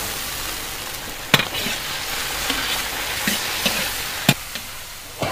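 Pork hock chunks sizzling steadily in a large iron wok in oil and dark soy sauce. A metal ladle stirs them, scraping the wok and knocking sharply against it about five times.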